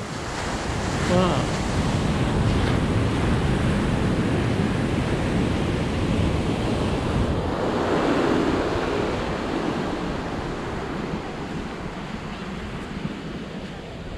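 Ocean surf washing up a sandy beach, with wind buffeting the microphone; the wash swells again about eight seconds in. A brief pitched, wavering sound comes about a second in.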